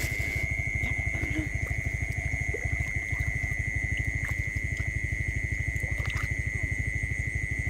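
A fast, even low throbbing under a constant high-pitched tone, with a few light splashes from hands groping in shallow muddy water.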